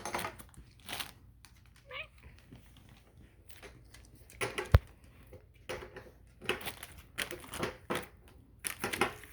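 Handling noise from unpacking and assembling punch bag parts: packaging crinkling, with parts shifting and knocking together at irregular moments. A single sharp knock just before five seconds in is the loudest sound.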